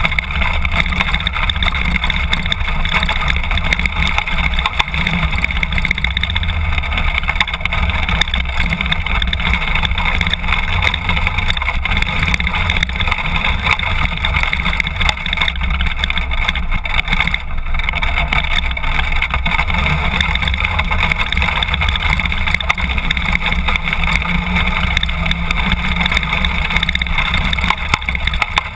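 BMW F800 GS's parallel-twin engine running steadily as the motorcycle rides a gravel dirt track, mixed with wind and tyre noise.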